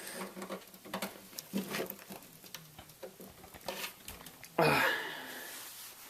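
Cable and plastic connector being handled and pushed into a power supply socket: scattered light clicks and rustles, then a sudden louder scrape about four and a half seconds in that fades over a second or so.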